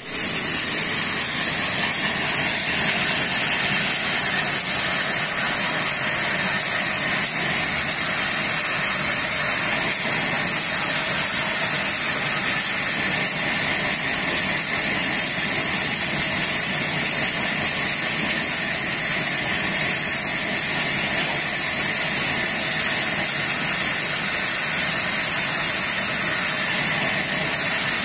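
Large sawmill band saw running steadily as a log is fed through its blade lengthwise, a loud, even hiss with no breaks.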